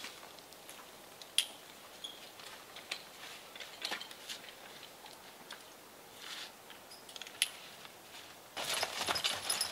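Light metallic clinks and clicks of horse harness hardware and trace chains being handled, scattered a few at a time. About a second before the end, a louder, steady run of rustling and stepping in leaf litter begins.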